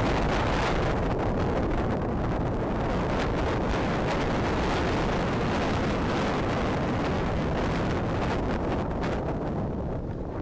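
Steady rush of wind over the microphone of a camera moving downhill on a ski slope, mixed with the hiss of snow sliding under the rider.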